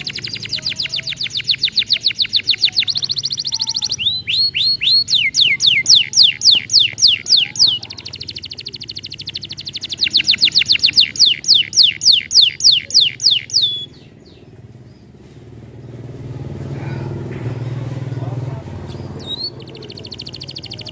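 Domestic canary singing in long fast trills of rapidly repeated high notes, some runs made of quick downward-sweeping whistles. The song stops for several seconds near the end, when a low hum rises, then starts again.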